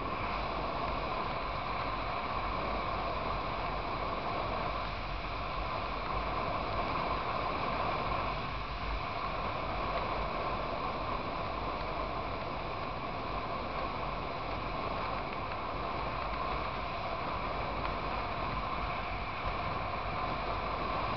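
Steady wind rush and engine drone of a motorcycle cruising at highway speed.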